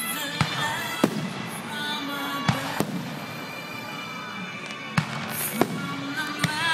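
Aerial fireworks shells launching and bursting, about seven sharp bangs at irregular spacing, with music playing underneath.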